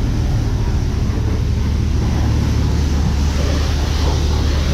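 Car wash high-pressure wand spraying water onto a car's body panels: a steady hiss of spray over a low steady hum.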